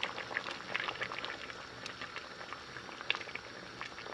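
A pot of thickened chicken and sweetcorn soup simmering, with steady bubbling and many small irregular pops.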